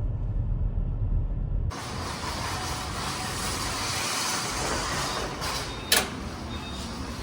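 Low steady rumble, like road noise inside a moving car, for under two seconds. It gives way to a steady hiss of background noise, with one sharp click about six seconds in.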